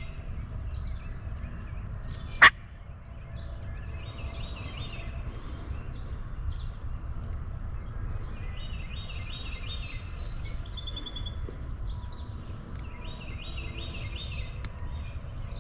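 Wild birds singing in repeated bursts of high notes over a steady low rumble, with one sharp, loud click about two and a half seconds in.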